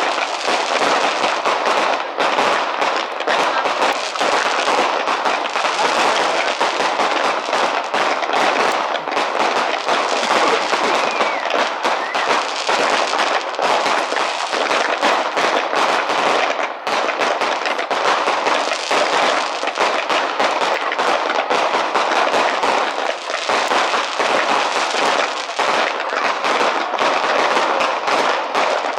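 Fireworks going off in a dense, unbroken barrage of rapid crackling bangs.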